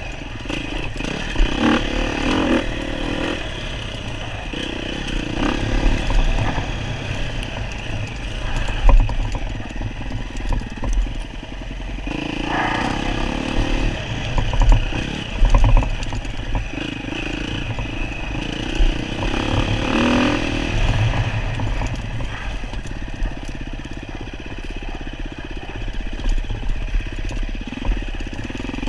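Enduro dirt bike engine running continuously, its revs rising and falling as it is ridden, with some clatter.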